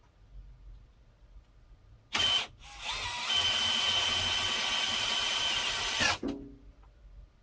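A high-speed rotary cutter motor on the lathe's tool post comes on with a short burst about two seconds in. It then starts again and rises to a steady high whine for about three seconds before cutting off. It is milling the thread of a 3D-printed plastic worm.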